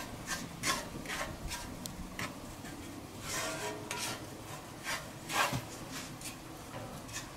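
Wooden spoon scraping and stirring gritty, half-melted granulated sugar around a cast-iron skillet, a rasping stroke about every half second at an uneven pace. The sugar is just beginning to melt for caramel.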